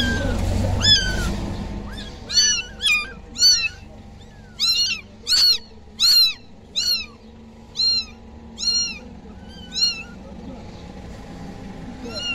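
Young kittens mewing: about a dozen short, high-pitched mews, roughly one every half second to a second, dying away near the end.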